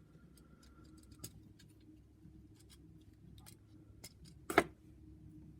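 Small clicks and taps of a plastic action figure being handled, with one sharper plastic click about four and a half seconds in.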